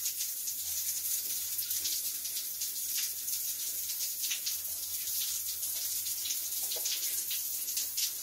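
Shower running: water spraying steadily from the shower head.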